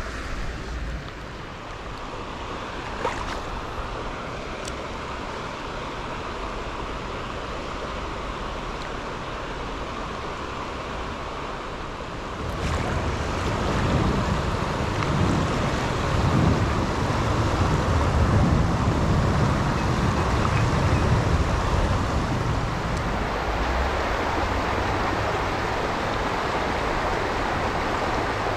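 Creek water rushing over a shallow rock ledge, a steady hiss of a riffle. Through the middle stretch a louder, uneven low rumble comes and goes, like wind buffeting the microphone.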